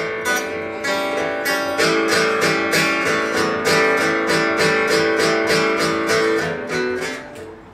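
Acoustic guitar strummed in a steady rhythm of about three to four strokes a second, playing the instrumental break of a blues song, dying down near the end.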